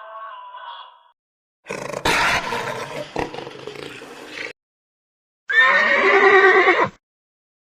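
Separate animal calls with silent gaps between them. A rough, noisy call runs from about two seconds in. Near the end comes a loud horse whinny, a pitched call that sweeps at its start.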